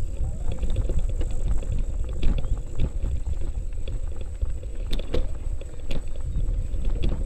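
Element Pikes folding bike rattling and knocking over a rough dirt track: scattered sharp clicks and knocks, the strongest about five seconds in, over a steady low rumble.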